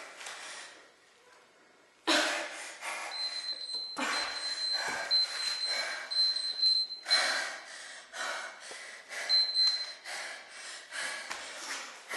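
A woman panting hard, out of breath from an intense cardio workout: quick, loud breaths in and out, about two a second. The breathing pauses for about a second near the start, then resumes.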